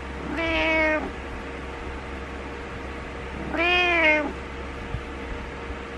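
Domestic cat meowing twice, about three seconds apart, each meow rising and falling in pitch, over a steady low hum.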